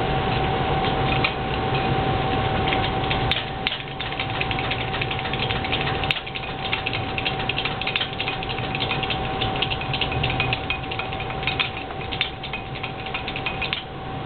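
Propane turkey-fryer burner running with a steady rushing noise and a constant thin hum. From about three seconds in, dense irregular crackling sounds over it.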